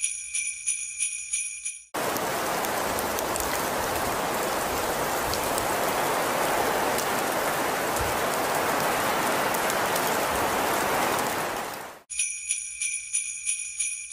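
A bright sound-effect jingle of quick, repeating chimes, about three a second, plays for about two seconds, then gives way to about ten seconds of a steady, even hiss of outdoor street noise on a snowy shopping street. The chiming returns for the last two seconds.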